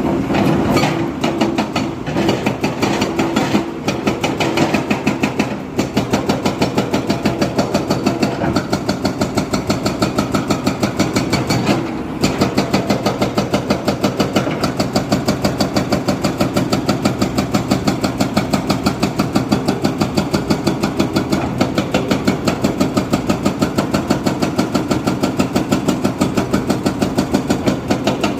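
Diesel engine of heavy construction machinery, running at a low, steady speed with an even chugging beat of about four pulses a second. There are a few irregular knocks in the first few seconds.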